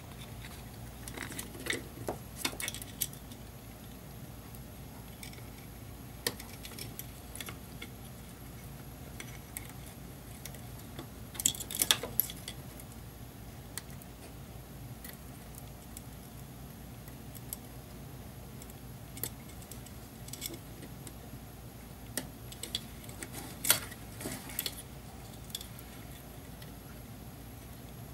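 Scattered small clicks and rattles as the circuit board and wiring of an Ibanez DE7 delay pedal are handled and fitted back into the pedal's case, the loudest cluster near the middle, over a steady low hum.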